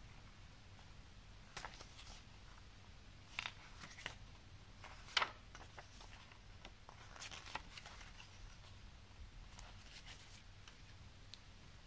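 Paper pages of a CD booklet being turned by hand: a series of short, faint rustles and flicks, the sharpest about five seconds in.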